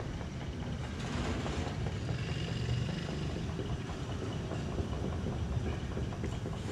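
Small electric water pump running with a steady low hum.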